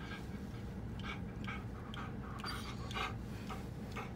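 Black Labrador panting rapidly, about two breaths a second, over a steady low hum.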